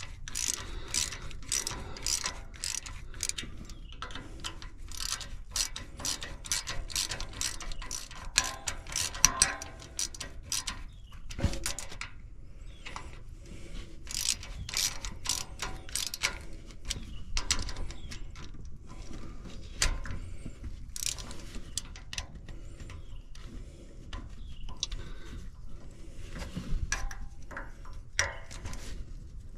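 Small hand ratchet clicking in rapid runs as the screws of an aluminum engine cover are snugged down evenly by hand, so the cover does not crack. The clicking is dense for the first dozen seconds, then comes in shorter, sparser runs.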